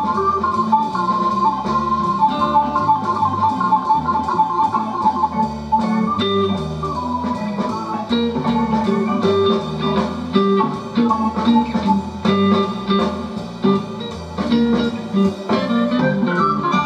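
Recorded music with guitar playing through an early-to-mid-1970s wooden-cabinet speaker with a Magnavox driver, driven by a JLH 1969 class A amplifier clone kit. The music runs steadily with a clear beat and sounds clean, as a test of the amplifier's sound.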